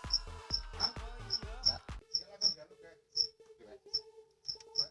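Cricket chirping in short, high chirps about two to three a second. Background music with a low beat plays under it and stops about two seconds in.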